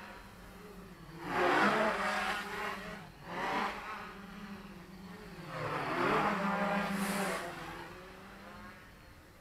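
Quadcopter on heavy 770 KV motors with 10x4.5 props, buzzing steadily in flight. Its pitch surges and falls back in three swells as the throttle and sticks are worked: about a second in, around three and a half seconds in, and a longer one around six seconds in.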